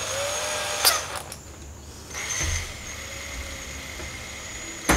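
Cordless drill: a sharp click about a second in as a smaller bit is fitted in the chuck, then the drill running with a steady whine from about two seconds in as it bores into the panel, and a sharp knock near the end.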